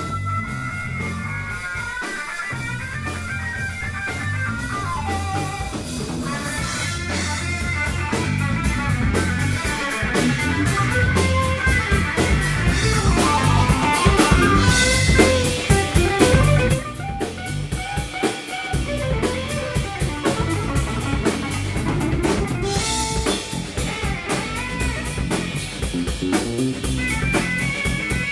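Live rock band playing through a PA: electric guitar, bass guitar and drum kit. It grows louder toward the middle, then drops back sharply about seventeen seconds in.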